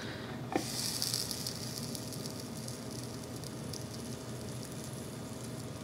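A Dash Mini waffle maker's lid clicks shut, then the batter sizzles and steams against the hot plates, a hiss that is strongest just after closing and settles to a steady lower sizzle.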